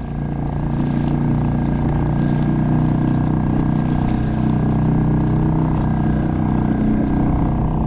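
Suzuki 2.5 outboard, a small gas motor, running steadily after a little throttle is opened and pushing the kayak along. It builds slightly in the first second, then holds an even drone.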